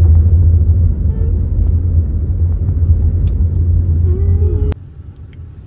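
Low, steady road rumble inside a moving car's cabin. It cuts off suddenly near the end, leaving a much quieter background.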